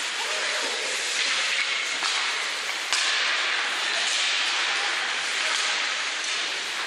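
Ice hockey rink ambience: a steady hiss of skates on the ice and arena noise, with one sharp knock about three seconds in.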